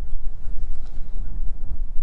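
Strong wind buffeting the microphone: a loud, low rumble that rises and falls with the gusts.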